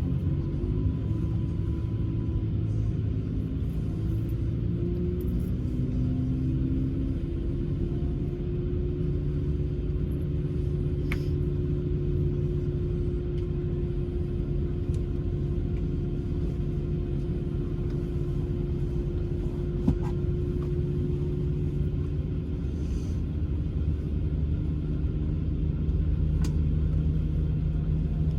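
Airbus A220-300's Pratt & Whitney PW1500G geared turbofans running at low power, heard as a steady low rumble inside the cabin. A few steady engine tones shift slightly in pitch in the first several seconds, and faint ticks sound now and then.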